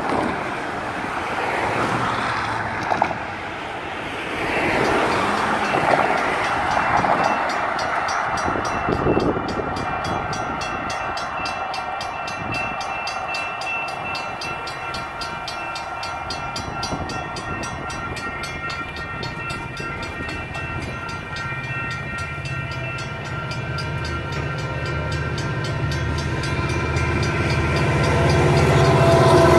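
Railroad crossing bell, a mechanical gong, clanging rapidly and steadily while the crossing is activated and the gates are down. Cars pass in the first few seconds. Near the end the low rumble of the approaching Union Pacific diesel freight locomotives grows louder.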